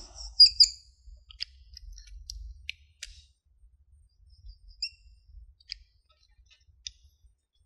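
Whiteboard marker squeaking against the board in a string of short, high squeaks with pauses between them, as wavy underlines are drawn beneath written characters.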